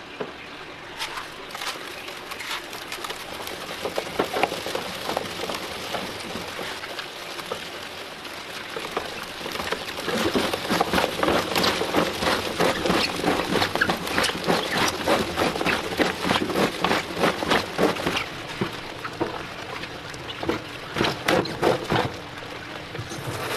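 Slimy live eels being rubbed and kneaded by gloved hands in a plastic colander: a fast, irregular run of wet clicks and slaps. It gets busier and louder about ten seconds in.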